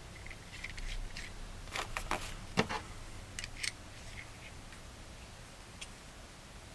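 Light clicks and scrapes of small parts being handled: the Invert Mini's new bolt guide back cap and its greased O-ring being fitted together. A cluster of sharper clicks comes about two to three seconds in, the loudest among them, then a few lighter ticks.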